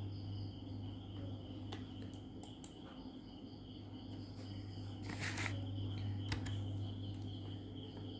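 Crickets chirping steadily in the background over a low, steady electrical hum, with a few faint clicks and a short rustle about five seconds in.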